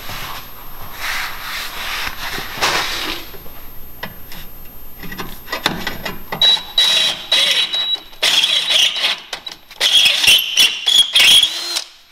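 Cordless drill boring out existing holes in steel to half an inch. The motor whines steadily while the bit grinds through the metal, in several loud bursts through the second half that stop just before the end.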